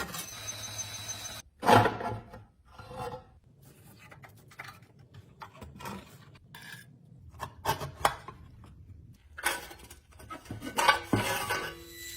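Scraping and rubbing worked by hand, a series of irregular strokes, with louder ones about two seconds in and again near the end.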